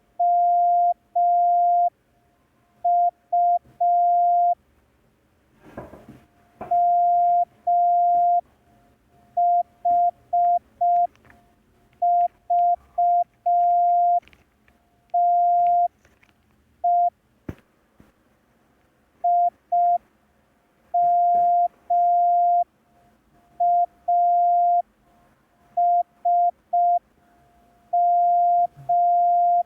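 Morse code practice tone: a single steady beep keyed on and off in short dots and long dashes, sent letter by letter with pauses between characters.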